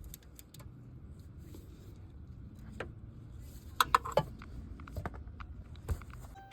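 Scattered light metallic clicks and clinks of small metal objects being handled, loudest in a quick cluster about four seconds in, over a low steady hum.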